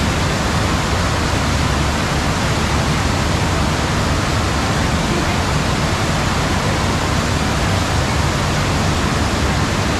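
Loud, steady rush of water pumped in a thin fast sheet up the slope of an indoor surf simulator, with a bodyboarder riding on it.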